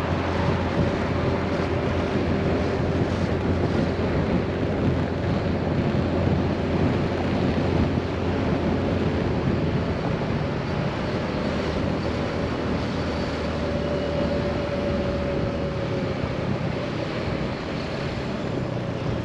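Scooter engine running under way, with road noise and wind buffeting the microphone. The low engine note drops and eases off about halfway through.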